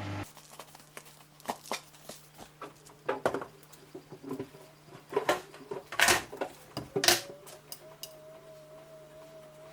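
Samsung washing machine just started on its cycle: scattered knocks and clatters as the load of trainers shifts in the turning drum, over a steady low motor hum. Near the end the knocking stops and a wavering whine sets in.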